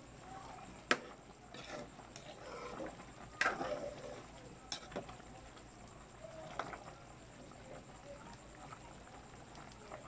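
A metal ladle clinks sharply against a pan of simmering chicken stew a few times as it is stirred, with a faint bubbling underneath.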